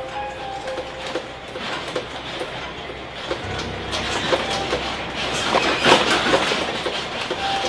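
The interior of a bus rattling and clattering over a low rumble as an earthquake shakes it, the clatter growing louder about halfway through. Short beeping tones sound near the start and again near the end.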